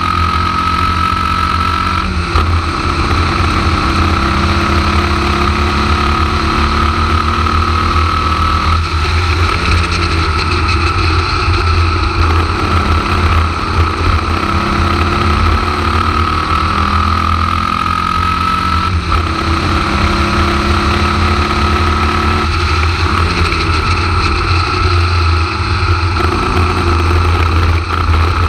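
Formula Vee race car's air-cooled Volkswagen flat-four engine at racing speed, heard from on the car: its pitch climbs and drops back at several gear changes, with wind noise throughout.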